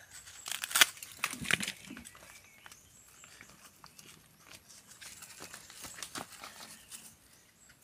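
Dry coconut husk torn apart by hand, its fibres ripping and crackling: a few loud tears in the first two seconds, then softer scattered rustling and snapping.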